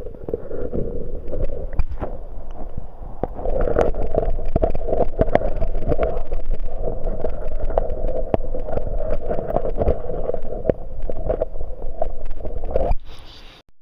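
Close rubbing and handling noise on the phone's microphone, a steady scratchy rustle with many small clicks and knocks, which cuts off suddenly near the end.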